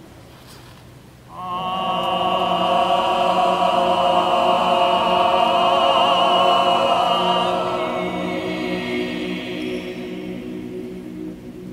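Background music with operatic singing: a single long held note with vibrato comes in about a second in over a steady accompaniment, then fades away toward the end.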